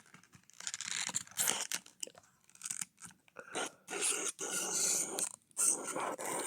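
Cardboard box packaging being torn open and handled, a run of irregular crunching and tearing scrapes with short pauses.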